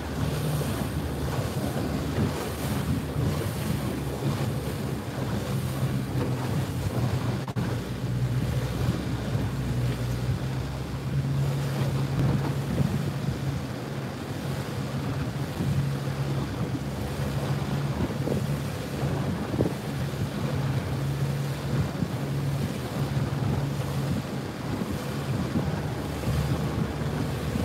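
A boat engine's steady low hum, with wind buffeting the microphone and the wash of choppy water.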